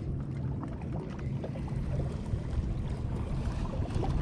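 Steady low rumble of water against a fishing kayak's hull with wind on the microphone, with scattered faint ticks.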